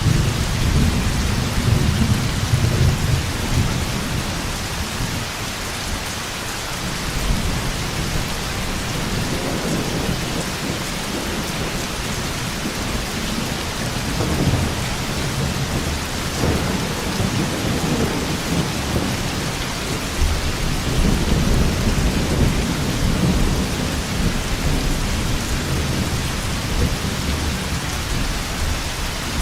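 Thunderstorm: steady heavy rain with rolling thunder rumbles, the strongest at the start and again about two-thirds of the way through.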